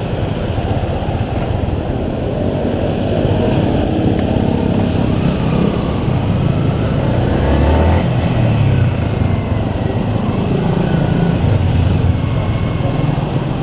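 Yamaha Sniper 150 motorcycle engine running under way, its pitch rising and falling with the throttle. Heavy wind and road noise and surrounding traffic are heard through a GoPro's onboard microphone.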